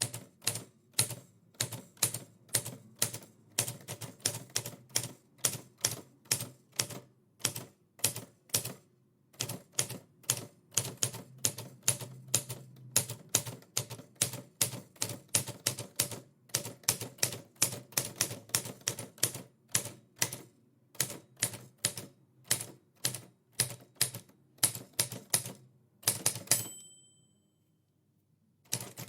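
Typewriter keys clacking in quick, uneven runs of about four to five strokes a second, with brief pauses. Near the end a fast cluster of clacks is followed by a short bell ding, the typewriter's end-of-line bell, and the typing stops for a couple of seconds.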